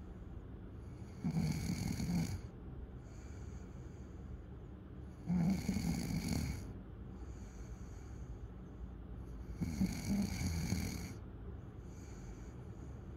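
A sleeper snoring in a slow, even rhythm: three loud snores about four seconds apart, with a quieter breath between each.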